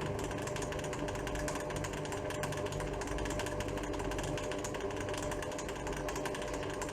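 Pfaff Creative 1471 sewing machine running at a steady speed with its needle removed, driven from its foot pedal: a fast, even mechanical chatter over a steady motor hum.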